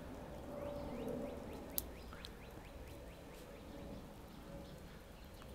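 A small bird chirping: a quick series of short, falling chirps. A single sharp click comes just before two seconds in.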